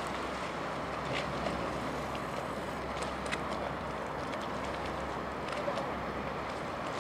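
River water lapping against the embankment: a steady wash with scattered small splashy ticks, over a steady low hum.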